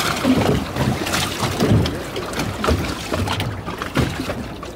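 Motorboat engines running and water sloshing as a patrol boat comes alongside an inflatable motorboat, with wind buffeting the microphone.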